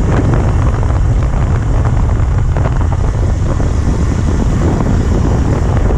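Wind buffeting the camera's microphone on a moving road bike: a loud, steady noise that is heaviest in the low end.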